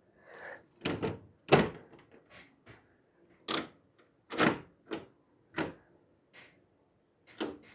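An irregular series of about a dozen sharp knocks and clicks, the loudest about a second and a half in.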